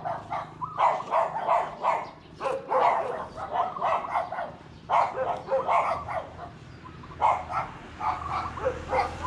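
Dog barking repeatedly in quick runs of short, sharp barks, with brief pauses between the runs.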